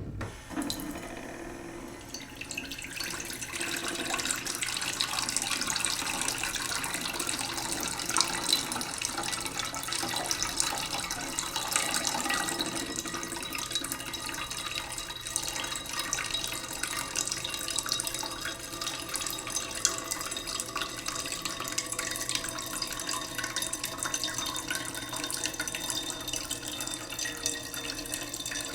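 Tap water running slowly into a cooking pot in a sink: a steady stream of water splashing into the pot, growing louder over the first few seconds and then holding steady.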